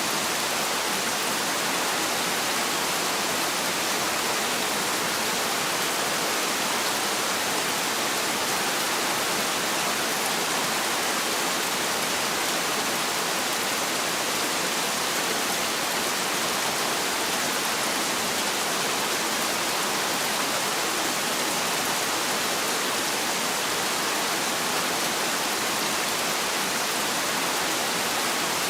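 Heavy rain falling steadily, a dense, even hiss with no thunder and no single drops standing out.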